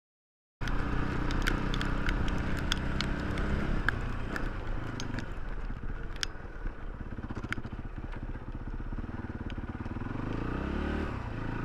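Yamaha WR400F four-stroke single-cylinder dirt bike engine running under way. It cuts in suddenly just after the start, with scattered sharp ticks and clicks, and revs up about ten seconds in before dropping back.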